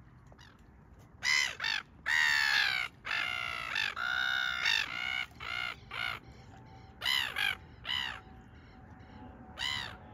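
Brown-hooded gulls calling: a string of loud, harsh screams starting about a second in, some long and drawn out, others short and in pairs. These are territorial calls, the gulls warning off other gulls nearby.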